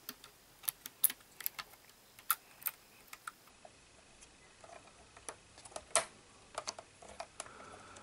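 Irregular light clicks and taps of hard plastic parts as a plastic timing tool is pressed onto the camshaft sprockets of a Haynes model V8 engine kit.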